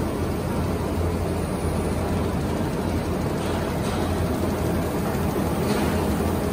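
Six-colour flexographic printing press running: a steady mechanical hum with a low drone, unchanging in level.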